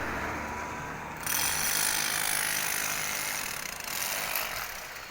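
Construction-site power tool noise: a harsh, hissing mechanical sound that starts suddenly about a second in and eases off near the end, over a low engine hum that is there at the start.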